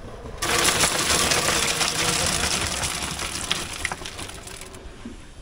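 Wet concrete poured from a bucket into a tall plywood wall form, sliding down past the rebar inside. It is a loud rushing noise that starts suddenly about half a second in and slowly fades away over about four seconds.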